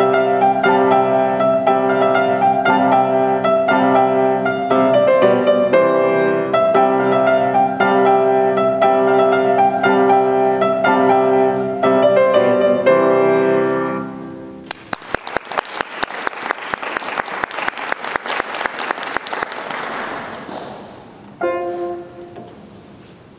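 Grand piano played, with notes sounding until a piece ends about 14 seconds in. Audience applause follows for about six seconds and fades out. The piano starts again with a few notes near the end.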